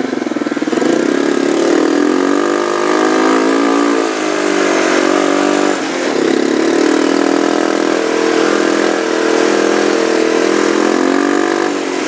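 Snowmobile engine running hard at speed. Its pitch climbs about a second in, sags and briefly drops off around six seconds, then holds steady.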